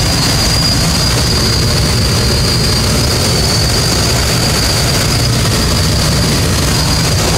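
Steady loud rush of air and the drone of the tow plane's engine, heard from inside a glider cockpit during the tow climb, with a thin high steady whine over it.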